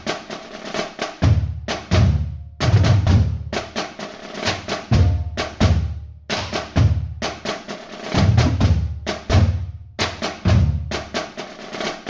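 Music: a drum beat of repeated bass drum thumps and sharper snare hits, a few strokes a second.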